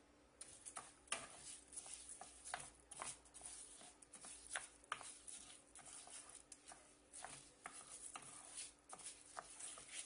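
Wooden spoon stirring and scraping rice grains as they toast in oil in a frying pan: faint, irregular light scrapes and clicks, several a second.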